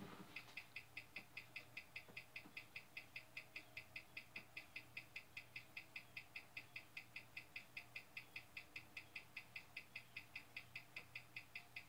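Hamilton calibre 756 wristwatch movement ticking steadily, about five beats a second, running with a newly installed replacement balance. The ticks are faint and start about half a second in. On the timing machine it runs fast, roughly 85 to 107 seconds a day.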